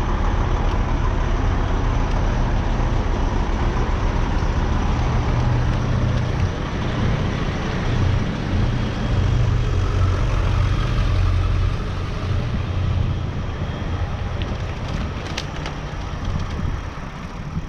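Large diesel engine of a fire truck idling: a steady low rumble that grows fainter over the last few seconds.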